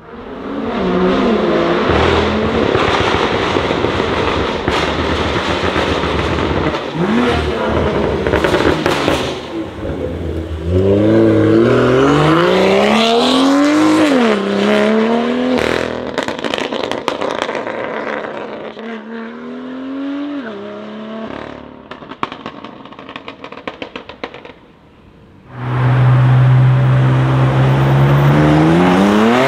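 Tuned BMW M cars with loud aftermarket exhausts accelerating hard, one after another: revs climbing and breaking off at quick upshifts, then crackles and pops as the throttle lifts. Near the end a car holds steady revs and then begins to rev up.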